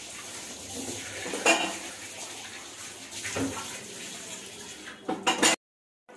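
Green chillies dropped by hand into a small stainless-steel bowl of mustard and cumin seeds: a few light clinks against the steel over a steady background hiss. A quick run of clinks comes near the end, then the sound cuts off suddenly.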